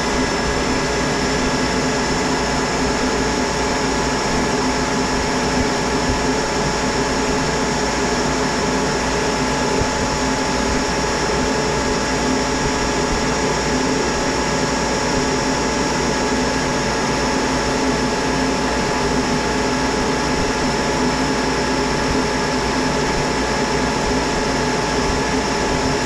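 Monarch 10EE lathe running at high spindle speed, about 3,900 rpm, with a steady sound holding several constant tones. The tool is taking a light finishing cut on a 2-inch 4140 steel bar under slow power feed.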